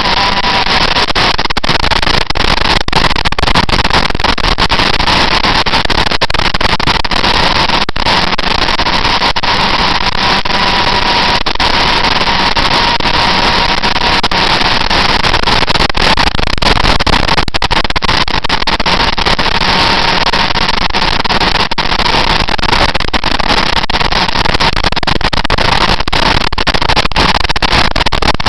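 Heavy wind buffeting on the microphone of a camera mounted on a moving motorcycle, with the bike's engine holding a steady high note underneath.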